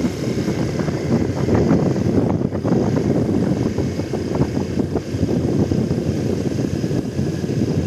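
Vehicle engine running steadily at low road speed, a continuous rumble.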